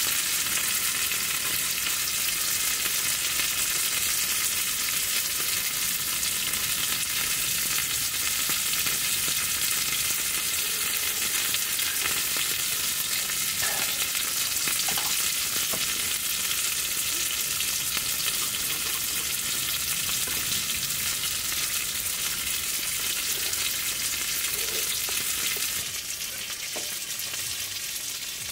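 Skewered chicken thigh pieces sizzling steadily on a small camping grill, with a few faint pops. The sizzle drops a little in level near the end.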